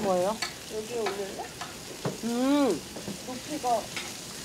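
Meat sizzling on a grill, heard as a steady hiss under short snatches of talk, with a few sharp clicks.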